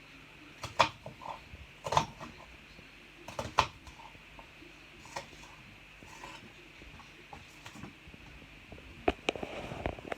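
Kitchen knife cutting through an onion, a few sharp knocks of the blade spread a second or more apart, with a quick cluster of clicks and handling noise near the end.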